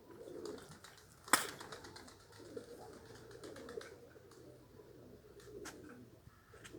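Domestic pigeons cooing, a low continuous murmur, with one sharp knock about a second in.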